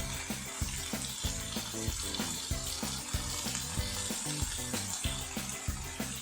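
Bacon-wrapped prawns and chicken sausages sizzling on a hot, oil-free pan, frying in the fat rendering from the bacon. Background music with a steady beat plays along with it.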